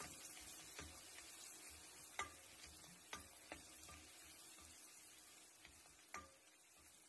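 Garlic frying in butter with a faint sizzle that slowly fades, while a utensil stirs it and knocks against the pan about five times, sharpest around two seconds and six seconds in.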